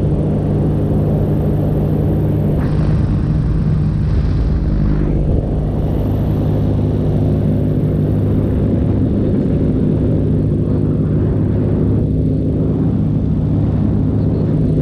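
Paramotor engine and propeller running steadily at cruise power, holding an even pitch, with rushing wind noise rising and falling over it.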